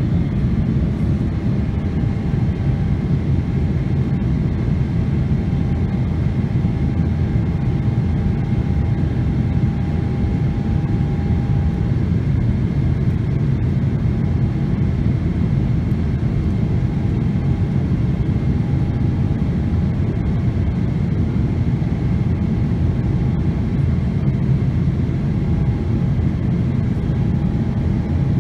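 Cabin noise of a Boeing 777-300ER climbing a few minutes after take-off: a steady, deep rush from its GE90 engines and the airflow past the fuselage, with a faint steady whine that fades in and out.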